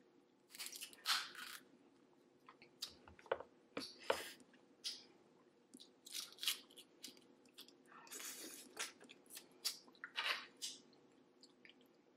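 Close-miked eating of a saucy seafood boil: irregular wet chewing and lip-smacking with crunchy bites, with no steady rhythm.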